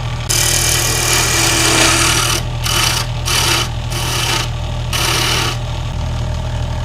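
Wood lathe running with a steady low hum while spinning wood is worked with a rasping scrape: one long pass starting just after the start, then four shorter strokes with brief breaks, stopping about two-thirds of the way in.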